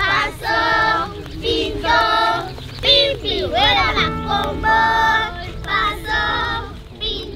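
A group of children singing a song together in chorus. About four seconds in, a low, sustained musical accompaniment joins underneath.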